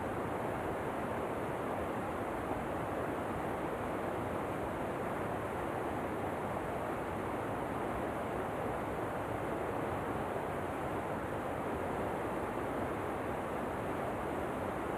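Waterfall ambience: a steady, even rush of falling water that does not change.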